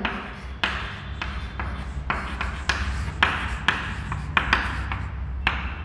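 Chalk writing on a chalkboard: a series of short scratching strokes and taps as words are written, over a steady low hum.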